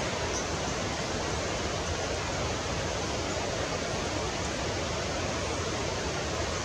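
Steady, even rushing noise at a constant level, with no distinct calls or wing hum standing out above it.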